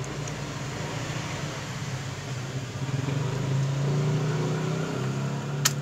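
A steady engine hum, getting louder about halfway through. Near the end there is a single sharp click as a laptop RAM module is pressed down into its slot's retaining latches.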